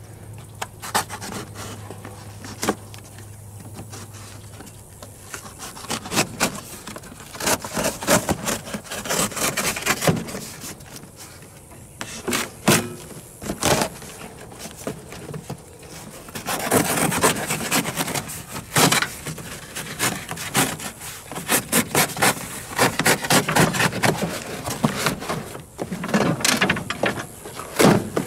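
A long cardboard shipping box being ripped and torn open by hand: a run of short tearing, scraping and rustling strokes, few at first and coming thick and fast in the second half.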